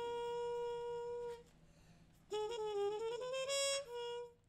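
Solo jazz horn line: one long held note, a short pause, then a quick run of rising notes that peaks on a high note and closes on a shorter one.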